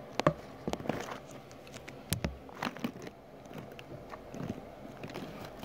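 Handling noise: an irregular run of sharp clicks and crackles, loudest in the first half, as the phone is moved close against the ant farm.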